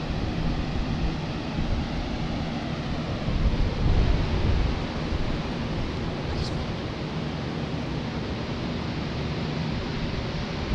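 Dozens of electric box, pedestal and table fans running together, a steady rush of air noise. The microphone is buffeted by low gusts about three to four seconds in.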